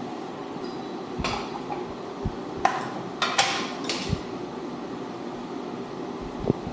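About five sharp metallic clinks and knocks in quick succession, some ringing briefly, from steel rack parts or tools being handled during assembly, over a steady low hum.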